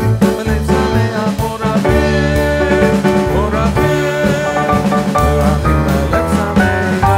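Background music with a steady beat and held instrument notes.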